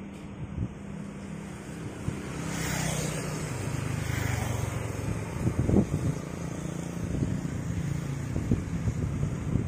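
Road traffic, with motorcycles riding past and a steady engine hum that swells as a vehicle goes by. A few low wind thumps hit the microphone a little past halfway.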